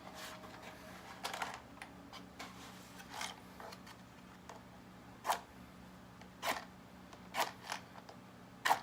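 A series of short, sharp clicks and scrapes, about eight of them at uneven intervals, the loudest around the middle and just before the end.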